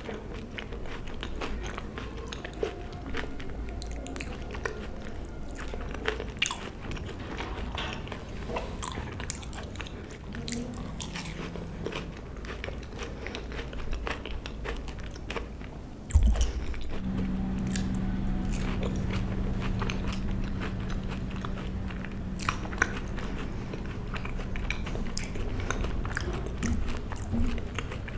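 A person chewing and biting food close to the microphone, with many small wet mouth clicks and crunches. About halfway through a steady low hum comes in under the chewing.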